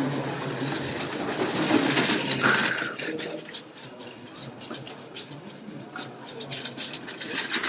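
Small car of a miniature roller coaster running along its rails, wheels rattling on the track, with a brief squeal about two and a half seconds in and a run of quick clicks from about three seconds in.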